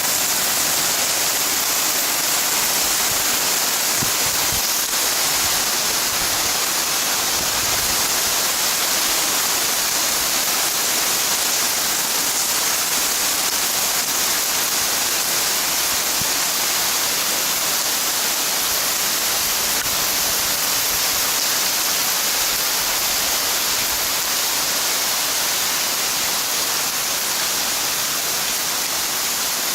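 Steady rain falling, an even dense hiss that holds at the same level throughout.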